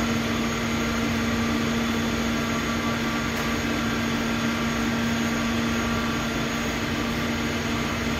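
Vertical hydraulic cotton baler running: the electric motor and hydraulic pump of its power pack give a steady hum while the press ram lifts.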